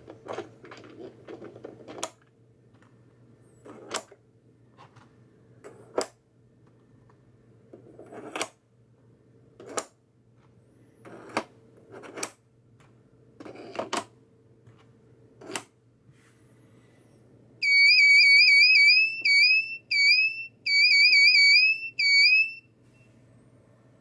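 3D-printed plastic circuit tiles click into place on a pegboard about nine times, a second or two apart. Then the circuit's electronic buzzer sounds a loud, high, bird-like warbling chirp in five bursts over about five seconds.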